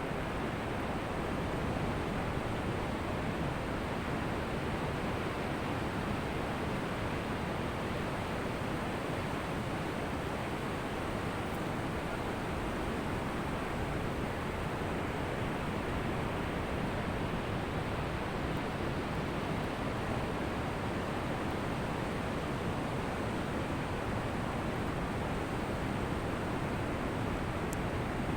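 Ocean surf washing onto a beach: a steady, even rush of breaking waves, with no single breaker standing out.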